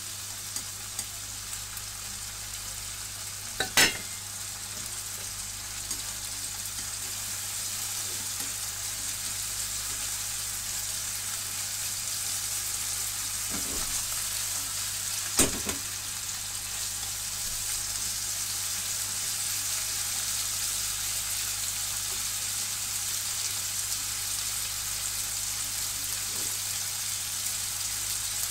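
Chicken skin and green peppers sizzling steadily in a frying pan as they are stir-fried. Two sharp knocks against the pan, one about four seconds in and one about fifteen seconds in.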